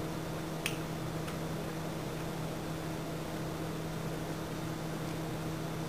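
Steady low hum over a faint hiss, with one small click a little under a second in as the trigger cable connector is handled at the back of the instrument.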